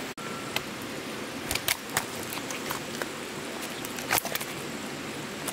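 Steady hiss of rain or water, broken by a few sharp splashes or slaps about two seconds in and once about four seconds in.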